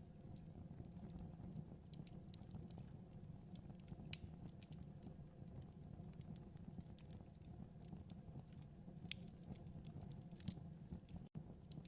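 Wood fire in a fireplace crackling faintly: scattered small pops and snaps over a low steady rumble of the flames, with a momentary dropout near the end.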